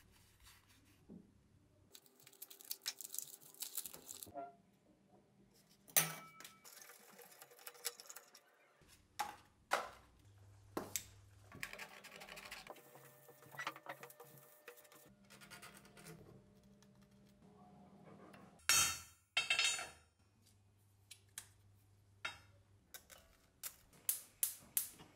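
Close hand-handling of small parts: rustling of paper and card wrapping, scissor cuts and light metal clinks of ball bearings, with a few sharp clicks. Near the end comes a quick run of about five clicks from the gas hob's igniter as its knob is worked.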